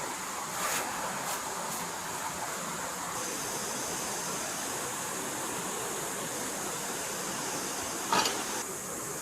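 Forest stream flowing with a steady rush of water, under a steady high-pitched whine. A few faint clicks about a second in, and a sharp knock about eight seconds in, the loudest sound.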